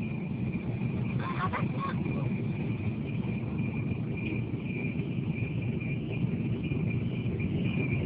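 Railway level-crossing warning siren of a new Alkmaar-type barrier, a non-standard siren with an odd sound, giving a steady high-pitched tone that wavers slightly, over the low rumble of a passing train.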